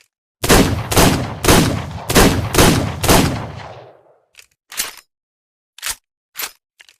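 Revolver sound effect: six loud gunshots fired in quick succession, about half a second apart, their echo fading out, followed by a few short sharp clicks.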